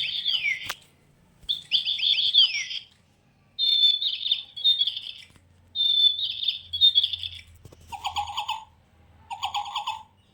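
Electronic toy bird chirping in about six short bursts of quick, high tweets with brief pauses between them; the last two bursts carry an added lower warble.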